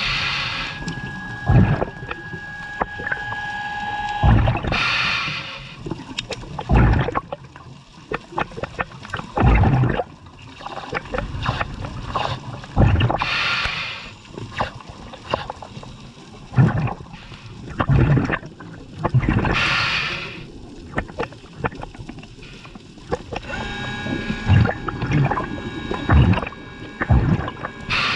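Scuba diver breathing through a regulator underwater: the exhaled bubbles rush out in a burst every several seconds, with low thumps in between. A faint steady whine is heard at the start and again near the end.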